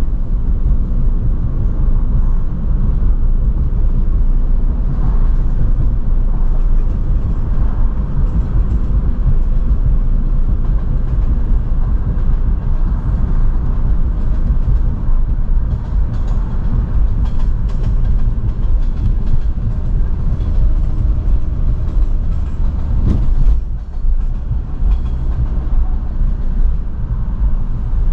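A small sports car's engine and exhaust running steadily while driving, over a deep rumble of tyres and road. There is a short dip in the noise about five seconds before the end.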